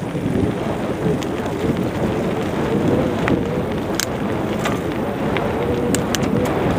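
Bicycle rolling fast over a rough off-road dirt trail, with steady rumbling from the tyres and wind on the microphone, and scattered sharp clicks and rattles from the bike.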